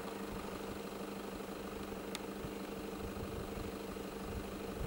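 Vehicle engine idling with a steady, even hum, and a faint sharp click about two seconds in.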